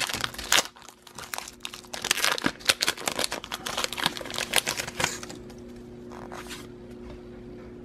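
Foil Pokémon booster-pack wrapper crinkling and tearing as it is pulled open by hand, for about five seconds; then the crackle stops, leaving only a faint steady hum.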